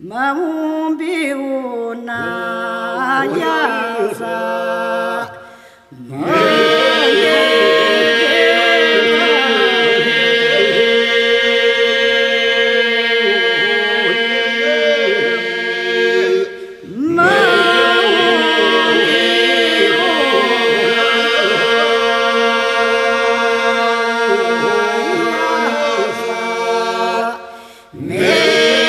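Albanian Lab iso-polyphonic folk singing by a small mixed group, unaccompanied: voices weave a melody over a held drone (iso). The song breaks briefly between phrases about 6 seconds in, again about 16 seconds in, and once more near the end.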